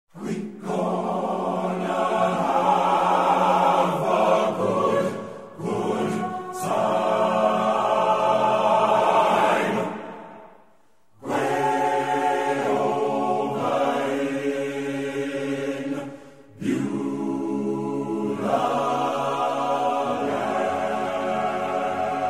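A choir singing long held phrases, breaking off a few times, with the longest pause about ten seconds in.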